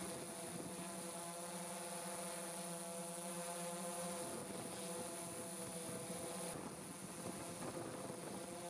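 Multirotor drone's motors and propellers buzzing steadily, their pitch shifting a little about four seconds in.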